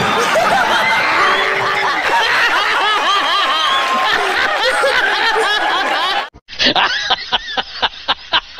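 A studio audience laughing and clapping, many voices at once. About six seconds in it cuts off abruptly and a run of short, choppy laughing bursts follows, several a second.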